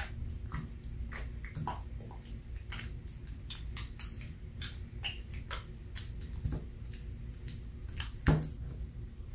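Slime being squished by hand: a string of wet clicks and small air pops, with one louder pop near the end, over a low steady hum.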